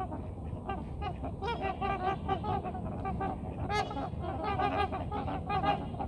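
A flock of trumpeter swans calling: many short, horn-like honks overlapping in a continuous chorus. These are the calls swans trade with their family before taking off.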